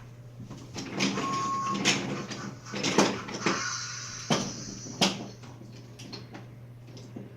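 Wooden toy trains and track pieces knocking and clattering as they are handled, with several sharp knocks between about one and five seconds in.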